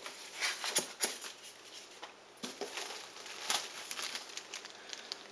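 Plastic wrapping crinkling and rustling in irregular crackles as the packed glass linear scales are handled in their cardboard shipping box.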